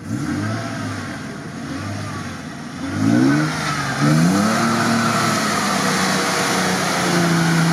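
Toyota FJ Cruiser's V6 engine revving hard as it drives through a deep mud puddle, the revs climbing sharply twice a few seconds in and then held high, with muddy water splashing off the wheels.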